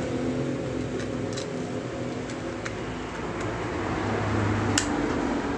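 Small plastic clicks from a sports camera and its plastic cover being handled and fitted together, half a dozen scattered ticks with the sharpest near the end, over a steady background hum.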